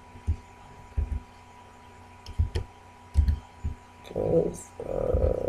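A handful of slow, separate key presses on a computer keyboard, each a short click with a dull thud. Near the end comes a louder, drawn-out low hum.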